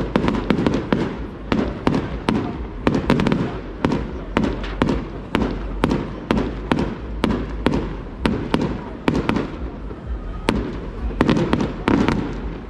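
Fireworks going off in a dense barrage: sharp bangs and cracks, several a second one after another, over a continuous low rumble.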